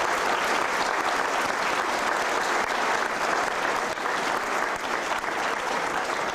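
Audience applauding, many people clapping at once at an even level.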